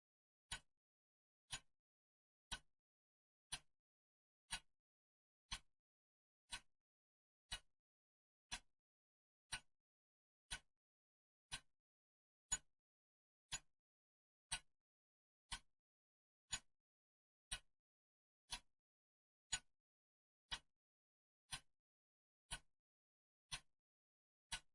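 Clock ticking steadily, one sharp tick a second, with silence between the ticks.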